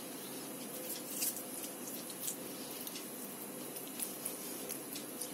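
Faint, soft squishing and a few light taps of hands rolling a damp grated cabbage-and-carrot mixture into small balls and setting them down on a steel plate, over a steady background hiss.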